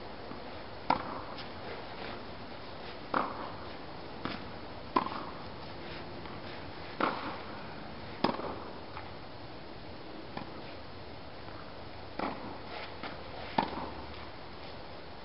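Tennis ball hit back and forth with rackets in a rally: sharp pocks every one to two seconds, with fainter bounces and footfalls between and a pause of a few seconds near the middle.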